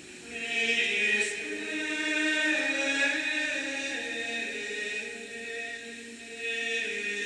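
Gregorian chant sung by a choir of monks: slow, sustained notes moving step by step in pitch, beginning just after the start.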